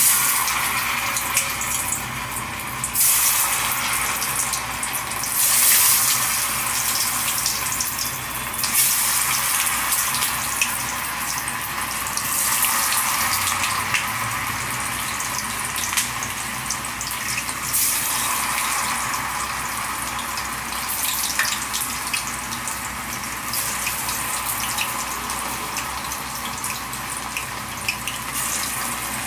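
Marinated, flour-coated chicken pieces going into hot oil and deep-frying: a sudden loud sizzle that keeps up as a steady hiss, swelling again every few seconds.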